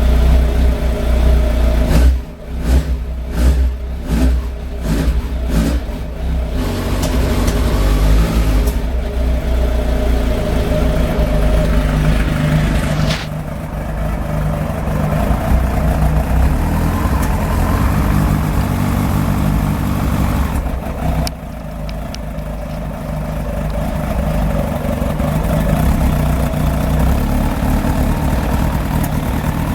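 Suzuki GSF 1200 Bandit's carburetted inline-four engine running unevenly at low revs, its level dipping sharply several times a few seconds in and shifting again later. It is popping a little, the backfiring into the carburettors that the owner is chasing after a valve adjustment and new spark plugs.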